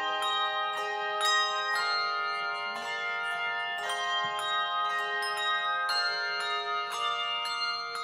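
Handbell choir ringing: chords of several handbells struck together about twice a second, the notes ringing on and overlapping.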